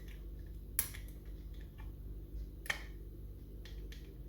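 Metal pick and tension tool ticking and clicking against the levers inside a lever mortice lock as the levers are lifted and tension is adjusted, with two sharper clicks, one about a second in and one near three seconds, over a steady low hum.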